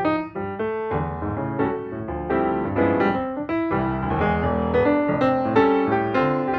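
Background piano music: notes and chords struck in a steady flowing rhythm.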